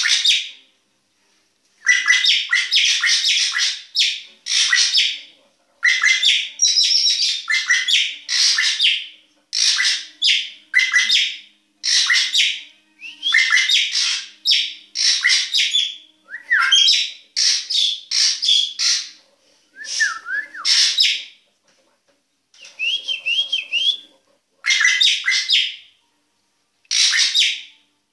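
A caged drongo singing: loud, harsh chattering phrases repeated in quick bursts with short gaps between them, and a few whistled zigzag notes mixed in.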